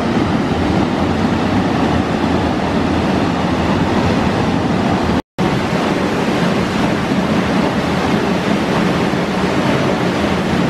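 Waterfall plunging into its pool: a loud, steady rush of falling water. It breaks off for an instant about five seconds in, then carries on just as before.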